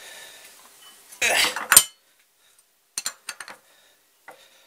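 Steel hand tools being handled at a milling machine: a loud metallic scraping clatter about a second in, then a few light metal clinks.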